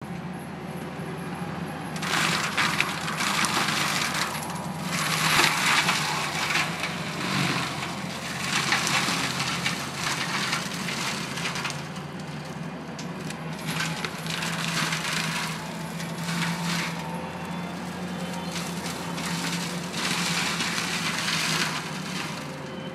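Skid steer engine running steadily under load, driving a Fecon Bull Hog mulching head that grinds and splinters pine brush in repeated bursts of a second or two as the drum bites into the wood.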